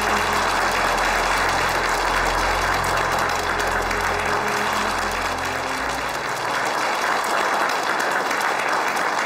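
Crowd applauding steadily, with soft background music held underneath for roughly the first six seconds.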